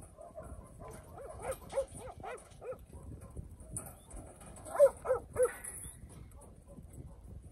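Working dog barking at sheep to push them up the yards: a run of about six short barks about a second in, then three louder barks in quick succession about five seconds in.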